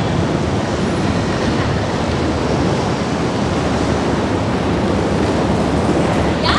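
Steady rolling rumble of roller skate wheels on a banked track, a continuous even roar.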